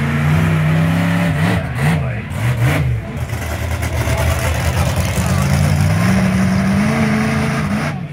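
Swamp Thing monster truck's engine, loud, revved in a few quick blips about two seconds in, then the revs climb steadily and drop away near the end as the truck drives across the arena.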